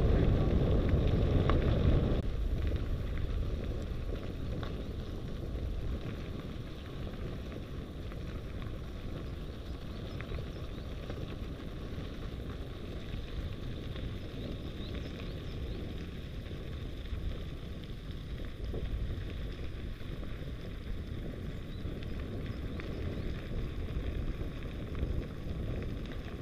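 Mountain bike rolling down a gravel track: wind rushing over the action camera's microphone with the rumble of tyres on gravel, loudest for the first two seconds and then steady.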